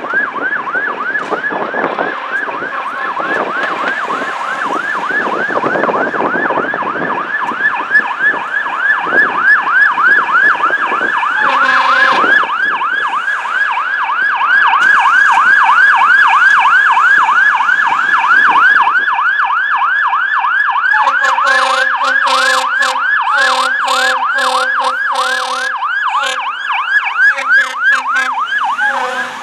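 Fire engine siren in yelp mode, a fast up-and-down wail repeating several times a second. A short horn blast comes in about twelve seconds in, and repeated on-off horn blasts sound over the siren through the last several seconds.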